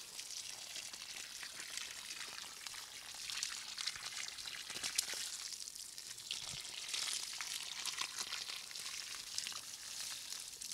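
Liquid manure poured from a bucket onto the soil along a furrow beside upland rice: a faint, even, crackling spatter with scattered small ticks.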